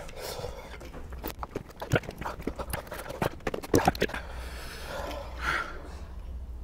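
An irregular run of sharp clacks and knocks from plastic drink bottles and their screw caps being handled and set down on a hard countertop, densest in the first few seconds.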